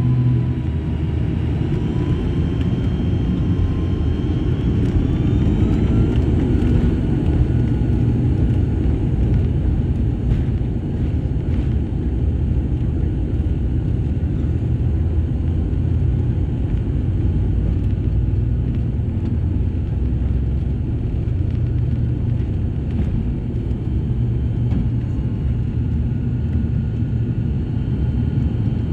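ATR-42 twin-turboprop airliner heard from inside the cabin on its takeoff roll. There is a steady, loud drone and rumble from the engines, propellers and runway. A whine above it rises in pitch over the first several seconds as the engines run up to takeoff power, then holds.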